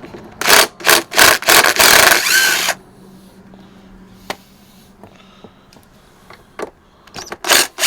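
Cordless impact wrench hammering on a front-wheel bolt of an old Honda Big Red trike. It fires in several short bursts, then a longer run of about a second that loosens the bolt, and two more brief bursts near the end.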